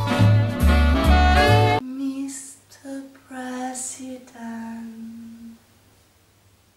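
Recorded swing-style jazz with a heavy bass beat plays and cuts off suddenly about two seconds in. A lone woman's voice then sings a short wordless phrase of a few notes, ending on one long held note, and quiet follows.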